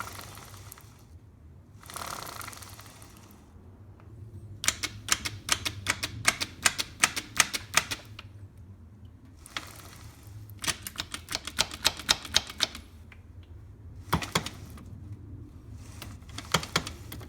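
Runs of rapid, sharp mechanical clicking, about five clicks a second, in several bursts with softer scraping swells between them, as a rebuilt 2009 Yamaha YZ250F engine and gearbox are worked by hand.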